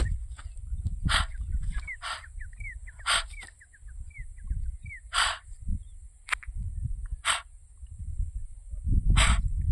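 Outdoor animal sounds: harsh, short bird calls repeating about every one to two seconds, with faint quick chirps in the first half and a steady high-pitched insect-like hum underneath.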